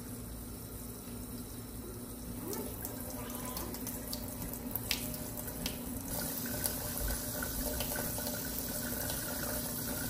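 Kitchen faucet running steadily into a stainless steel sink while rice is rinsed in a bowl, the cloudy rinse water poured off into the sink, with a few light clicks.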